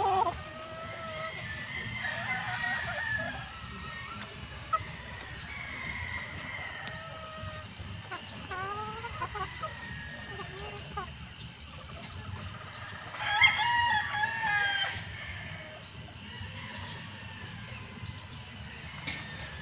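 Gamefowl hens clucking and making short calls, with a rooster crowing once, loudly, about two thirds of the way through. Two sharp clicks are heard, one early and one near the end.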